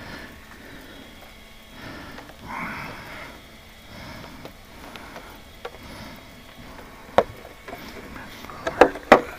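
Hands handling a plastic RC truck body and chassis: soft rubbing and shuffling, then a few sharp clicks and knocks, the loudest twice near the end.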